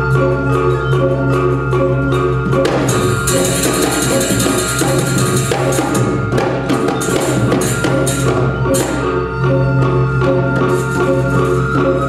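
Balinese gamelan ensemble playing: bronze metallophones ringing in quick repeating patterns over a held low gong tone, with drumming. About three seconds in the music turns into a loud, dense passage of rapid high metallic strikes, then settles back into the ringing pattern near nine seconds.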